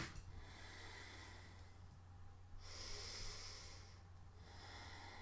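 A woman's faint, slow breathing while she holds a yoga lunge: about three long breaths, each a soft hiss, over a low steady hum.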